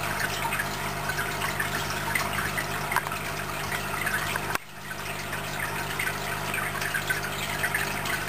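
Aquarium water circulation: steady trickling and bubbling over a constant low hum. It drops out suddenly about halfway through and comes back within a second.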